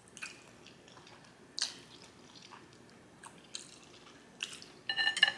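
Close-miked chewing of instant black bean sauce noodles (jjajangmyeon): scattered soft, wet mouth clicks. Near the end, a quick run of clinks from a utensil against the bowl, ringing briefly.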